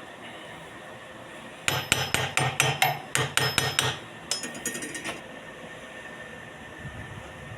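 Rapid hammer strikes on steel: a flurry of about five sharp, ringing blows a second lasting about two seconds, then a shorter flurry a moment later. This is a chipping hammer knocking slag off a freshly stick-welded stainless bead on an outboard motor's drive shaft.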